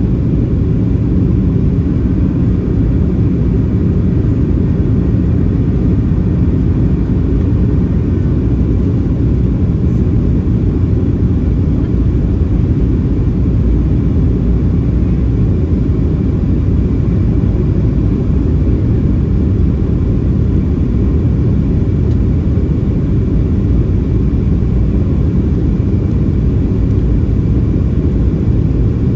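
Steady cabin noise inside a Boeing 737-700 descending on approach: an even, deep rumble of airflow and the CFM56-7B engines, with no change in level.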